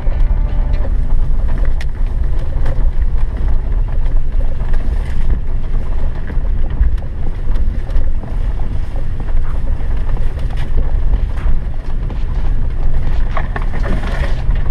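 Opel Frontera 2.0 Sport driving slowly along a rutted dirt forest track: a steady low engine and drivetrain rumble, with scattered short knocks and rattles from the body and suspension over the bumps.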